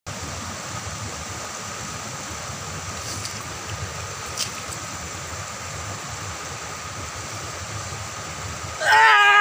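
Steady rush of water pouring over small stone weir waterfalls into a rocky river. Near the end a person breaks into a loud, high wailing cry.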